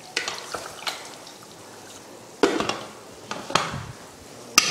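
A spatula stirring beef chunks in water inside an aluminium pressure cooker, with scattered wet scrapes and knocks against the pot. A sharper metallic knock comes near the end.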